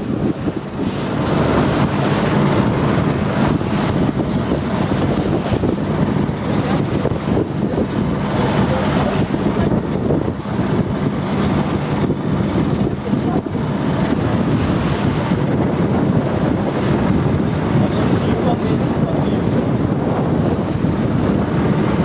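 Small motor boat's engine running steadily under way, with wind buffeting the microphone and water rushing along the hull.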